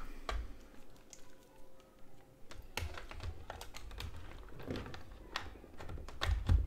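Scattered plastic clicks and knocks as a Nintendo Switch dock is handled and the Switch console is lowered into it, with the loudest knocks near the end as the console goes into the dock.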